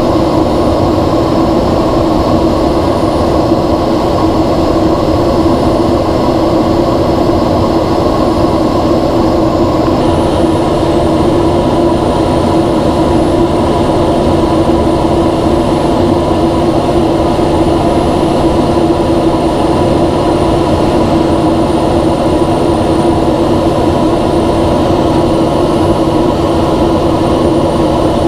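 Steady drone inside the cockpit of a NASA ER-2 high-altitude jet in cruise, from its single turbofan engine and the airflow, with a steady hum running through it. The mix changes slightly about ten seconds in.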